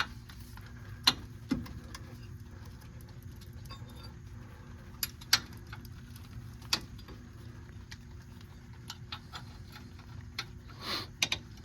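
Scattered light metallic clicks and taps of hand tools and hardware as the brake caliper's upper guide-pin bolt is started into its thread, quickening into a run of ticks near the end, over a low steady hum.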